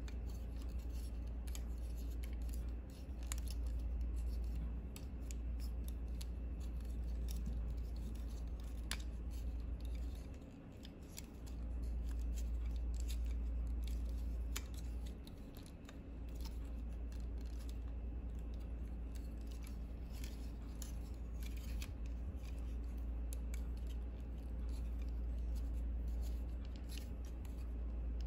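Plastic parts of a Megatron Transformers action figure clicking and snapping as its joints and panels are folded and moved into place, with irregular small clicks and some rubbing. A steady low hum runs underneath and dips briefly twice.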